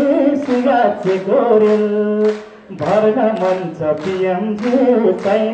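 A man singing unaccompanied into a microphone, holding long, wavering notes, with a brief break about two and a half seconds in.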